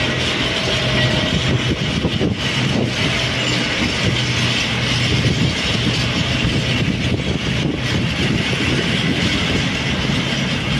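Freight train of rail tank wagons rolling past, steel wheels clattering and rumbling over the track. A steady hum fades out about a second in.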